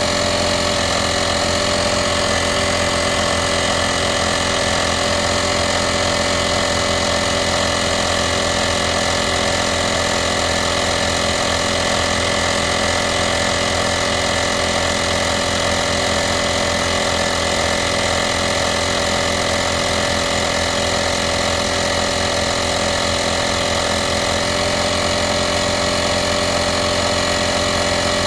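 VacLife portable 12-volt tire inflator running steadily, its small piston compressor pumping air into a car tire with a fast, even buzzing rattle. The pitch shifts slightly about 24 seconds in.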